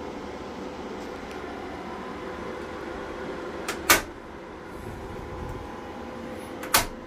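Steady hum of EG4 solar inverters and their cooling fans running under load, broken by two sharp clicks, about four seconds in and again near the end, as the red rotary solar (PV) disconnect switch is turned by hand to cut the solar input and test whether the MPPT fans make the noise. The hum drops slightly after the first click.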